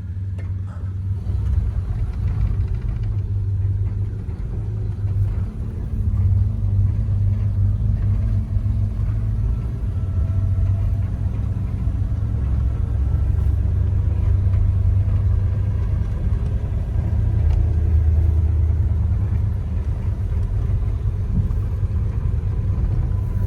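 1946 Hudson Commodore Eight's flathead straight-eight engine running as the car pulls away and drives, a steady low rumble that steps up in loudness about six seconds in, heard from inside the car.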